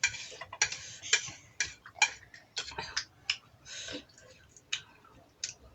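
Eating sounds: irregular clicks and crunches from chewing and from utensils on dishes, a few to several a second.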